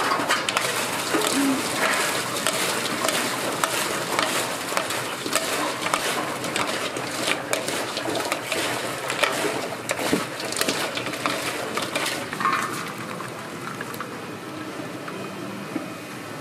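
Cooking clatter: many quick knocks and scrapes of utensils and cookware over a steady noisy background, thinning out near the end.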